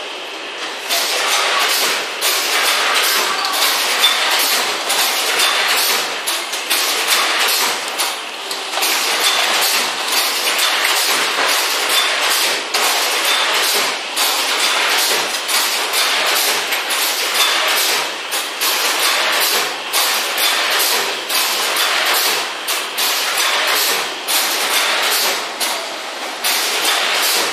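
Automatic folder gluer for corrugated carton boxes running, with a dense, rapid clatter that carries on steadily.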